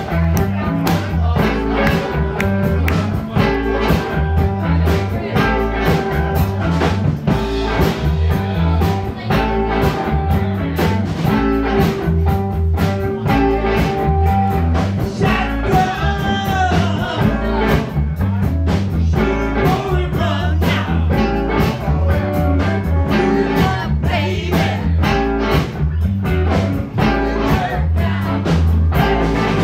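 Live blues band playing an up-tempo tune: drum kit, electric guitars, electric bass and tenor saxophone, with a steady beat.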